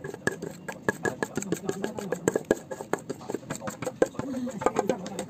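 Metal spoon scraping and clinking against a stainless steel mixing bowl while thick cake batter is spooned out, a quick irregular run of sharp clicks, several a second.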